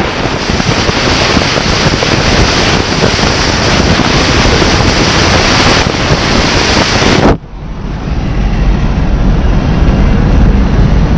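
Heavy wind rushing over the microphone of a camera outside a car moving at highway speed, over the rumble of the car on the road. About seven seconds in, the hiss suddenly drops away and a quieter, lower rumble carries on.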